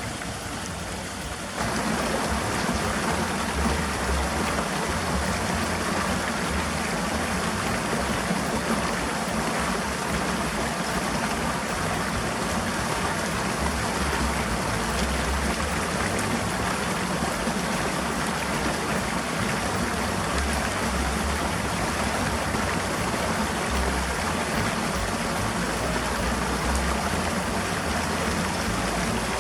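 Steady rushing noise, like running water, that gets louder about two seconds in and then holds steady, with uneven low rumbles underneath.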